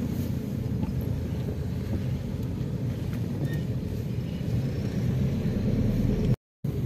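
Car driving along, heard from inside the cabin: a steady low rumble of engine and tyres. It drops out briefly near the end.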